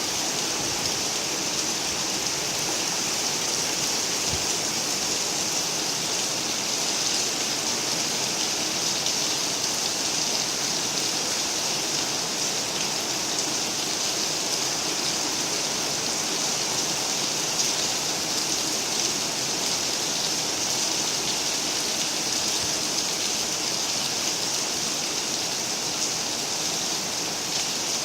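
Steady rainfall: an even, continuous hiss of rain falling and pattering on surfaces.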